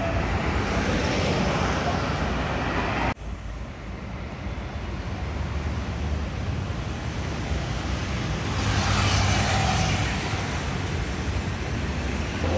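Road traffic on a multi-lane city road, buses and cars running past with a steady low rumble. The sound breaks off abruptly about three seconds in and resumes, and a vehicle passes close, swelling and fading, about nine to ten seconds in.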